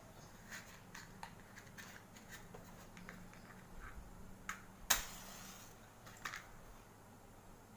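A balloon bursting once with a single sharp bang about five seconds in, preceded by light scattered clicks of the balloon being handled.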